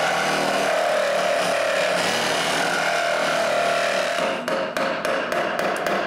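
Reciprocating saw cutting a slot into the end of a wooden bar, the motor and blade running steadily through the wood. After about four seconds the cut breaks into a run of quick irregular knocks and rattles, and the saw stops right at the end.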